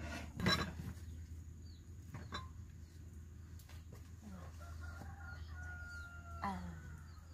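A rooster crowing: one long call of about two seconds, starting about four and a half seconds in. A short, loud burst of noise comes about half a second in.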